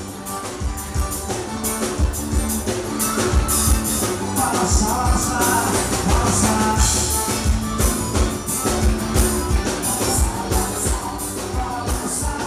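Forró band music playing with a steady drum beat.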